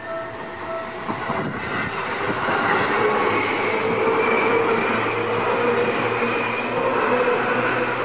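Seibu 2000-series electric commuter train passing close by, its wheels running on the rails with a rising, steady rumble and whine. During the first second or so a level-crossing warning bell is still ringing in pulses, then drops out under the train.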